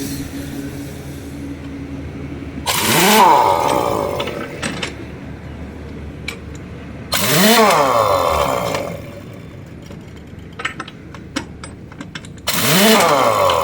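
A motor spun up and back down three times, each burst about two seconds long with a hiss over it, and light clicks and taps in between.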